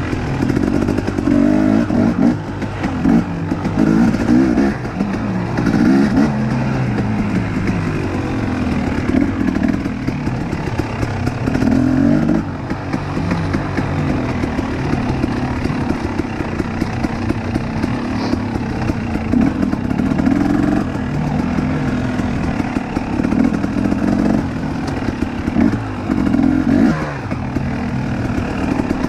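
2019 KTM 250 XC two-stroke dirt bike engine under a riding load, its pitch rising and falling every second or two as the throttle is opened and shut.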